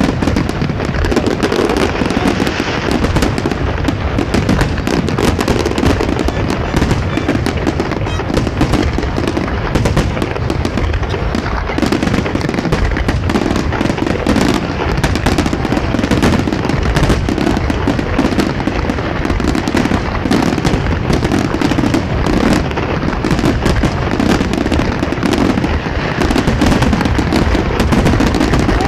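Fireworks display in full barrage: many shells bursting in quick succession, the bangs overlapping into a continuous loud rumble with no pause.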